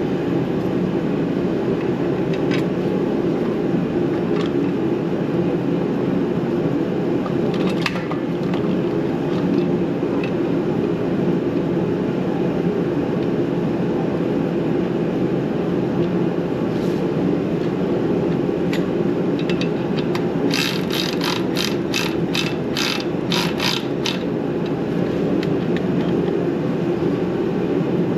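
Hand ratchet wrench clicking in a quick run of about ten strokes, about three a second, as bolts on the Ford 8N's clutch assembly are run down. Under it is a steady background hum, with a few scattered clicks and knocks of tools and parts.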